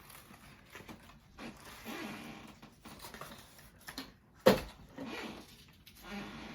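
A wig being handled and turned over: short bursts of rustling, with one sharp click about four and a half seconds in.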